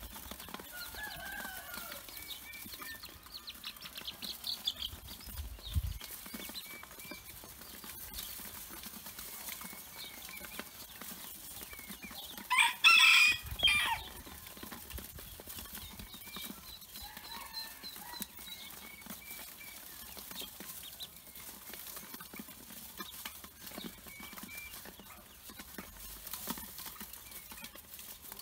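Pekin ducklings peeping softly while pecking feed from a metal bowl, with scattered light taps. About halfway through a chicken gives one loud call lasting about a second and a half.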